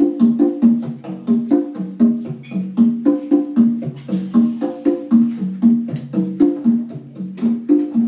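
Instrumental music: a fast, even run of short pitched notes that step up and down, struck or plucked, with percussion.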